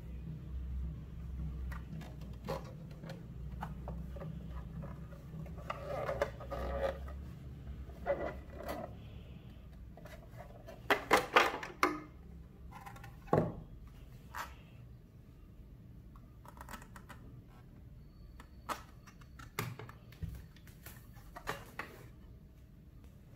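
Plastic casing of a Synology DS220j NAS being handled and slid apart: scattered clicks and knocks, with a quick run of loud clicks about halfway through as the two halves of the shell come apart, and a single sharp knock just after.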